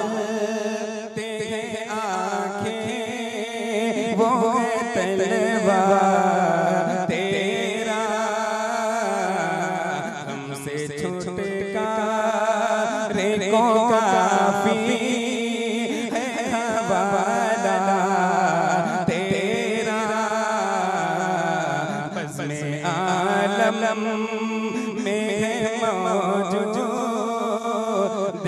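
A man singing a naat (Urdu devotional poem) solo into a microphone in long drawn-out phrases with wavering held notes. He breaks briefly for breath about ten seconds in and again a little past twenty seconds.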